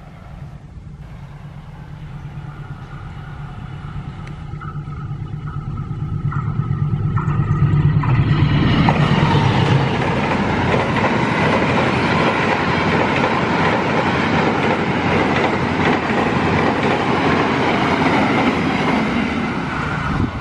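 A diesel-electric locomotive hauling an express passenger train comes closer, its engine hum growing steadily louder. About eight seconds in the coaches are passing at speed, with loud wheel-on-rail noise that eases slightly near the end.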